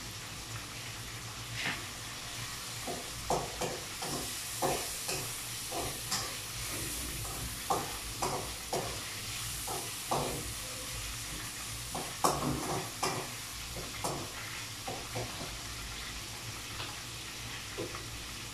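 Ladle stirring and scraping in a wok of frying food, with irregular knocks of the ladle against the pan over a steady sizzle. The knocks come thickest in the first two-thirds and thin out toward the end.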